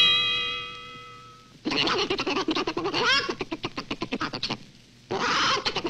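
A held musical tone rings and fades. Then a cartoon chicken's voice breaks into rapid clucking chatter, about nine clucks a second, in two runs: the first about three seconds long, the second starting near the end.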